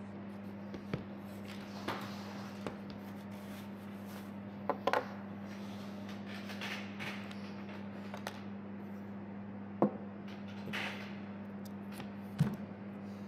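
Objects handled on a wooden table: a few sharp knocks and clicks with some soft rubbing and shuffling as glasses and a tablet in its keyboard case are picked up, set down and opened. A steady low hum lies under it.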